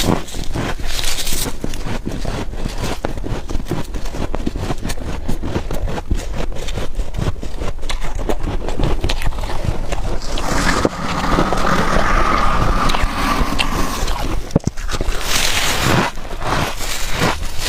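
Freezer frost being scraped and crunched: a dense run of crackling, crunchy scrapes, with a longer, smoother scrape for a few seconds past the middle.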